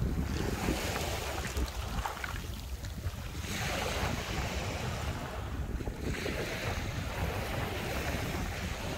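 Small waves washing up a sand and pebble shore, three washes that each swell and fade as a hiss, over steady wind rumbling on the microphone.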